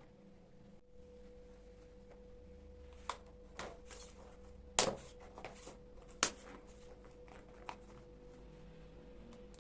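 Kitchen handling sounds: a few short sharp knocks and clicks of utensils or containers, the loudest two about halfway through, over a steady high-pitched hum.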